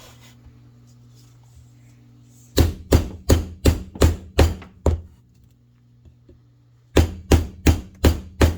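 Rapid, evenly spaced chopping blows with a SOG Aegis FL folding knife, about three sharp knocks a second. One run of about eight strikes, then a pause of about two seconds, then the chopping starts again.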